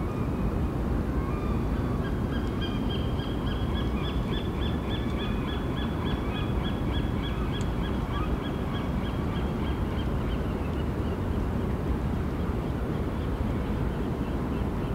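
A bird calling in a long run of short repeated notes, about three a second, from about two seconds in until about ten seconds in, over a steady low rumble.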